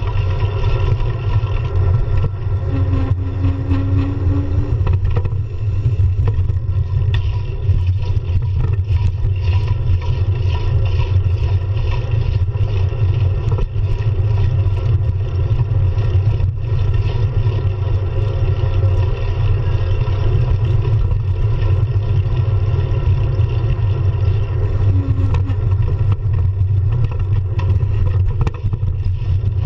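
Steady heavy wind rumble and road vibration on a handlebar-mounted GoPro while riding a bicycle through traffic. A short low tone sounds twice, about three seconds in and near the end.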